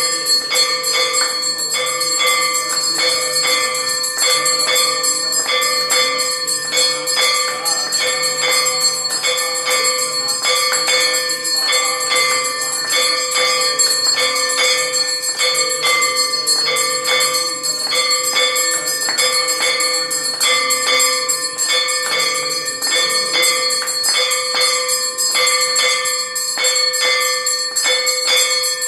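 Temple bells ringing without pause for the aarti, struck over and over at an even pace of roughly two to three strokes a second, their tones hanging on between strokes.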